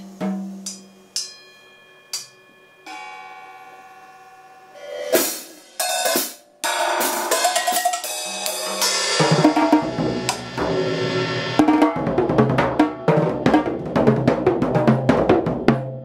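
Acoustic drum kit played freely: a few sparse drum strikes and a long ringing metallic note that dies away, a brief swell, then fast, dense playing across drums, cymbals and bass drum that builds from about nine seconds in.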